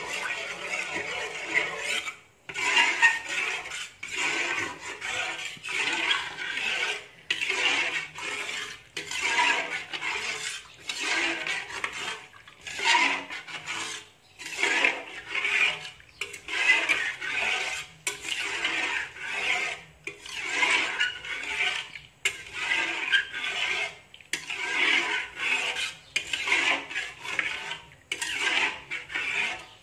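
Stainless steel spoon scraping and stirring runny pandan nagasari batter in a nonstick wok over medium heat. It goes in repeated wet scraping strokes, about one a second, to keep the flour from clumping as it heats.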